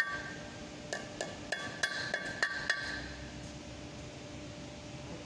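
A hammer tapping a seal into a Toyota Land Cruiser FJ62's front wheel hub, in about eight quick metallic strikes over the first three seconds. Each strike leaves the hub and brake rotor ringing. The strikes stop after that.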